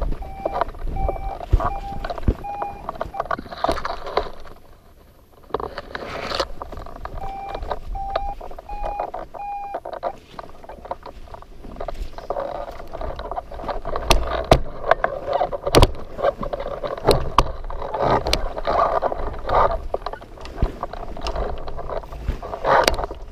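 Hang glider variometer beeping: two runs of about five short beeps, each a little higher than the last, the first at the start and the second about seven seconds in. The beeps mean the instrument is sensing rising air as gusts come through. Underneath, wind buffets the microphone, with knocks and clicks from the glider and harness being handled.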